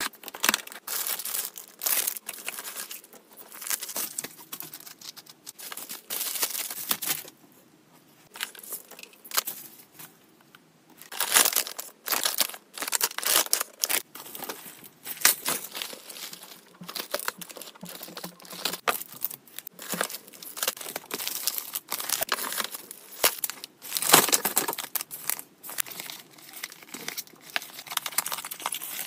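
A cardboard parcel being unpacked by hand: packing tape slit and torn near the start, then cardboard flaps and boxes scraped and handled and plastic wrapping crinkling. The noises are irregular, with rustles and scrapes coming in uneven bursts and short pauses.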